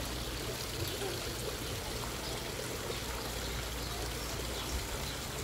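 Tiered stone courtyard fountain, water spilling from the upper bowl and splashing steadily into the basin below.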